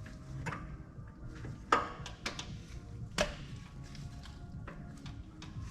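Background music with a scattering of sharp clicks and knocks, two of them louder, about a second and a half and about three seconds in.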